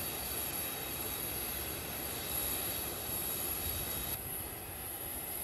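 Steady jet aircraft noise: a low rumble with a thin high whine that drops away about four seconds in.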